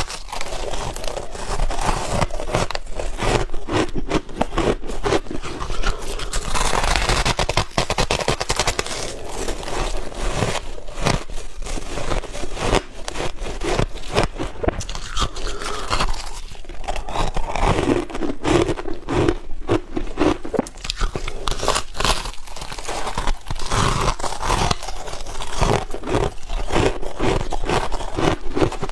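Close-up crunching of soft, powdery freezer-frost ice being bitten and chewed: dense, irregular crackling crunches that go on without a break.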